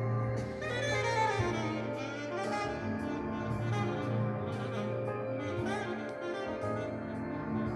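Recorded jazz with a saxophone carrying the melody over a steady bass, played back through a single-ended valve amplifier built on PTT205 and PTT203 valves.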